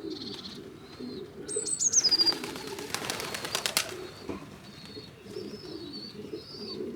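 Pigeons cooing steadily in a low voice, with small birds chirping high over them. About two seconds in comes a loud, rapid clatter of wingbeats lasting about two seconds, typical of pigeons flapping up and taking off.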